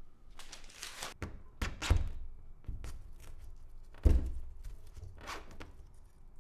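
A string of irregular dull thumps and lighter knocks, the two heaviest about two seconds in and about four seconds in.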